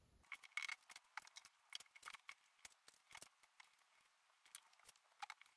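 Faint scattered clicks and light rustles of string being threaded through paper straw segments taped onto a cardboard hand.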